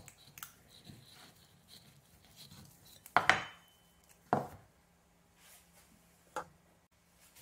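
A knife cutting an avocado in half on a plastic chopping board: faint scraping clicks, then a few short sharp knocks, the loudest about three seconds in, as the halves are twisted apart and the stone comes out.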